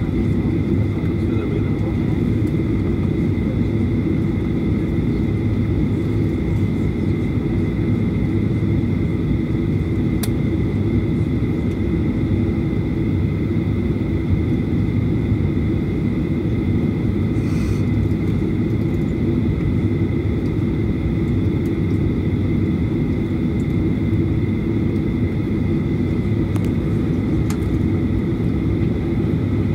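Jet airliner's engines running at idle, heard from inside the passenger cabin: a steady low rumble with a steady high whine over it, and a faint click about ten seconds in.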